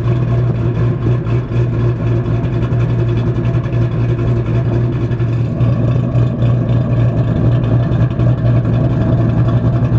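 2013 Mustang GT's 5.0 L V8 idling steadily through an off-road H-pipe with no catalytic converters, stainless straight-through over-axle pipes and stock axle-back mufflers, on a cammed idle tune.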